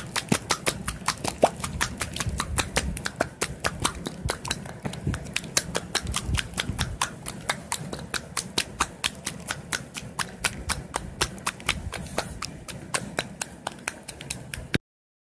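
Mayonnaise being slapped by hand: a rapid run of wet slaps, about four or five a second, that cuts off suddenly near the end.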